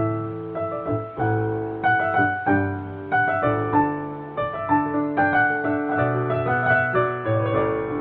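Background piano music: a melody of struck notes over lower held notes.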